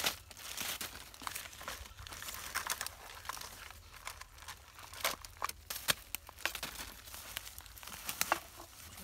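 Plastic bags and dry grass crinkling and rustling as hands rummage through a pile of rubbish, with scattered small clicks and knocks.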